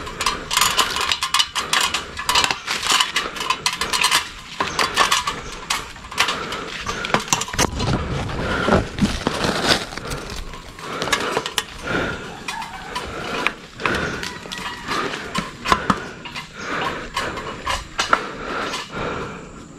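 Irregular knocking, clattering and rustling, with no motor running.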